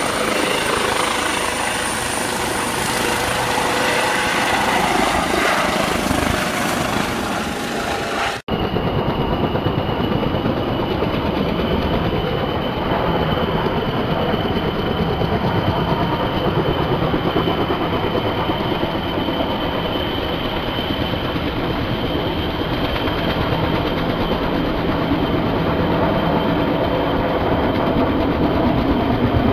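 Helicopter running steadily: the rotor's rapid chop under a steady high tone. About eight and a half seconds in it breaks off for an instant and picks up again, sounding different after the break.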